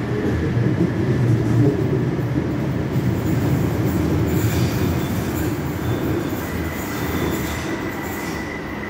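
Lausanne M1 light-metro train pulling out of the station: a low rumble that is loudest in the first few seconds, then its wheels squeal twice, from about four and a half and about seven seconds in. A steady high tone joins about six and a half seconds in.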